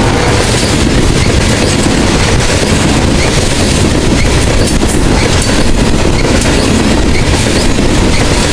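Loaded coal hopper cars of a freight train rolling past, a loud, steady rumble of steel wheels on the rails.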